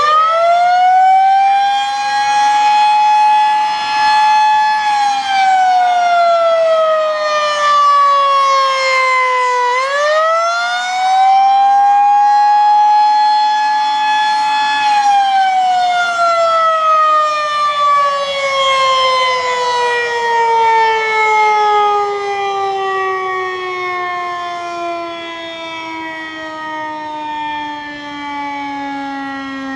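Federal Signal 2001-SRNB electromechanical warning siren sounding the Attack signal: a very high-pitched, very loud wail that climbs, holds, falls and climbs again about ten seconds in. About halfway through it winds down, the pitch sliding steadily lower and the sound growing quieter.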